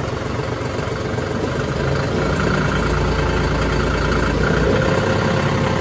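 John Deere 5405's three-cylinder turbocharged common-rail (CRDI) diesel engine idling steadily, heard from the driver's seat, its level rising slightly about two seconds in. The owner calls it very quiet, "completely silent".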